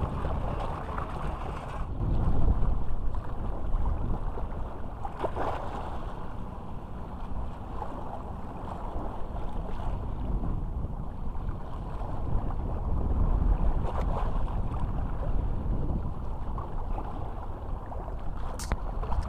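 Wind rumbling on the microphone over small sea waves lapping and washing around a submerged breakwater, with a single sharp click near the end.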